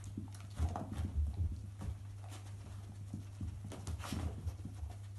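Two dogs sniffing and snuffling through a fabric snuffle mat, with quick irregular sniffs and rustles of the fleece strips, over a steady low hum.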